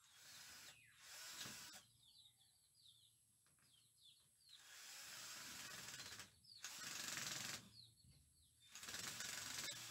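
Woven bamboo wall panel rustling and scraping against its wooden frame in several second-long strokes as it is pushed and worked into place by hand. Birds chirp faintly between the strokes.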